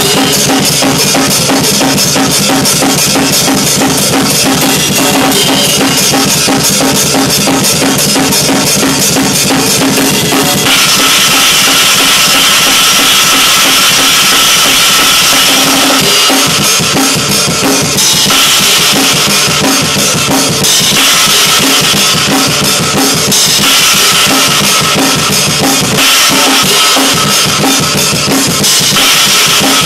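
Metal drumming on a Pearl drum kit with Zildjian cymbals: fast, dense kick and snare strokes under constant cymbal wash. The cymbals grow much brighter and louder about a third of the way in, and the pattern keeps changing every few seconds after that.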